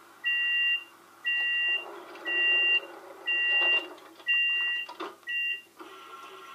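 Sound decoder of a Märklin LINT model railcar playing a door-closing warning: a two-note electronic beep, about half a second long, repeating about once a second, six times, with a short knock near the end of the beeps. Then a steady hum takes over.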